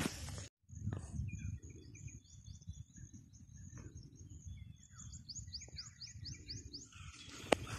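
Small birds chirping in the open, ending in a quick run of about seven short, high, falling chirps, over a low rumble. A single sharp click near the end.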